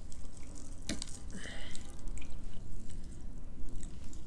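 Scattered small, wet mouth clicks and smacks from people eating finger food and sipping a drink from a mug, with a sharper click about a second in.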